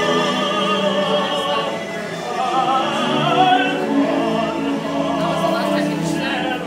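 Man singing opera, a solo male voice holding long notes with a wide vibrato.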